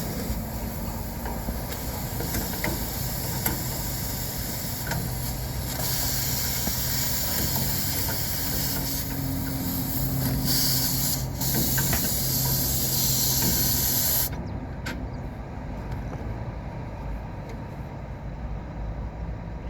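Steady gas hiss over a low hum, cutting off abruptly about fourteen seconds in, followed by quieter background noise with a few light clicks.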